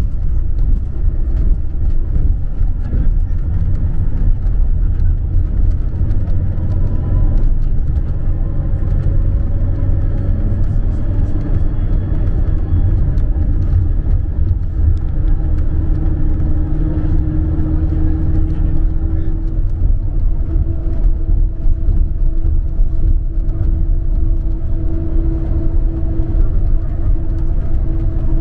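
Inside a Scania coach cruising on the road: a steady low engine and tyre rumble, with a drone whose pitch creeps up slightly about halfway through.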